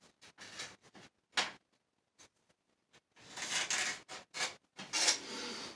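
Short, scattered scrapes and a sharp knock from a torpedo level and pencil being worked along a wooden straight edge to mark a level line, with a denser run of scraping from about three seconds in.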